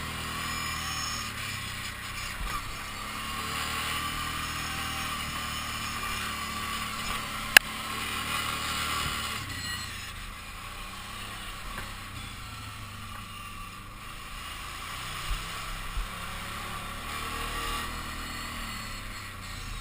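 Kawasaki Brute Force 750 ATV's V-twin engine running on a trail ride, its pitch rising and falling with the throttle. A single sharp click about seven and a half seconds in, and two small knocks later on.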